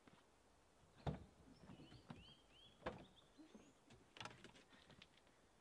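Three clunks as the rear cargo door of a Ford Transit Connect van is unlatched and swung open, about a second, three seconds and four seconds in, with a few faint bird chirps between them.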